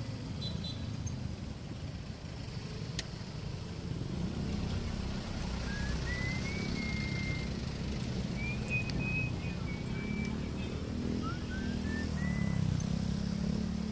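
Motorcycle riding in city traffic: a steady low rumble of engine and road noise, with the surrounding cars and motorcycles. A few faint, high, gliding whistle-like tones come and go in the middle.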